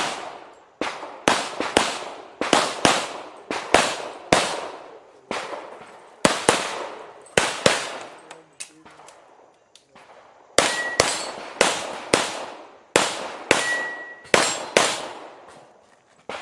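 Rapid pistol fire from a .40 S&W Rock Island Armory Pro Ultra Match, shots about every half second in pairs and strings, with a lull of about two seconds near the middle. Twice in the second half a brief ring follows a shot, like a steel target being hit.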